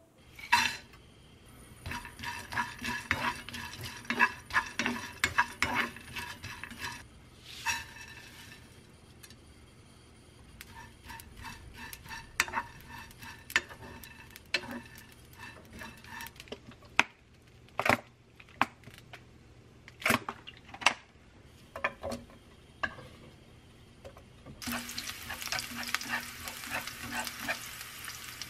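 Dried anchovies being stir-toasted in a dry frying pan, the wooden spatula scraping and tapping against the pan in irregular clicks. About twenty-five seconds in, a steady sizzle starts as sliced garlic fries in oil.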